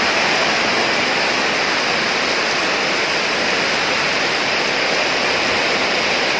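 Heavy tropical downpour drumming on a corrugated zinc roof, a steady, loud hiss, made louder by the metal roof.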